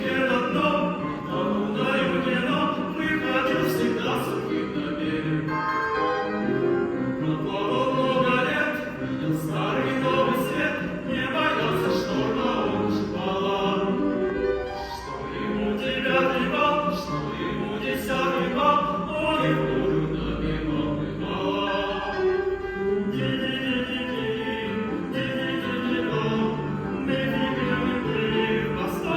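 Male voices singing operetta couplets in Russian, in a light comic style, with piano accompaniment.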